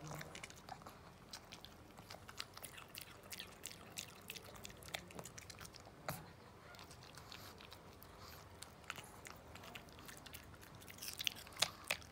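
A pug chewing pomegranate seeds, with quick irregular crunchy clicks and mouth smacks throughout, and a louder flurry of them near the end.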